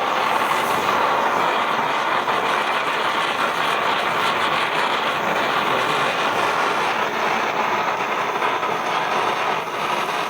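A ground firework burning with a continuous, steady hiss of spraying sparks, dipping slightly in level near the end.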